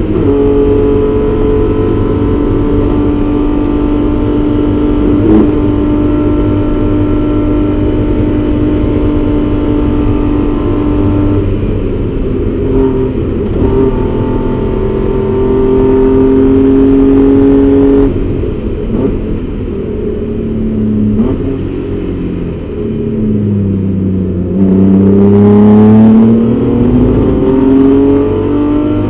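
In-cabin sound of a BMW 325is race car's straight-six engine under full throttle near 6,800 rpm. Its note drops and wavers as the car slows for a corner, then rises steadily as the car accelerates hard again near the end.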